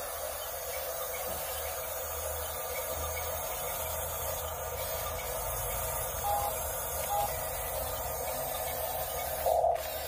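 Huina 569 1/16-scale RC bulldozer driving through loose dirt: a steady whir from its small electric track motors and gearboxes. Two short beeps come about six and seven seconds in, and a brief louder burst near the end.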